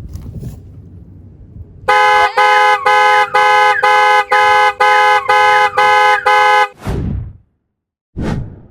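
A horn honks about eleven times in quick succession, roughly two honks a second, loud and even. Two short low falling sounds follow near the end.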